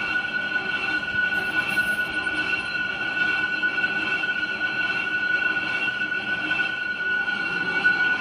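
Workshop machine tool running with a steady whine over rough mechanical noise, unchanging throughout.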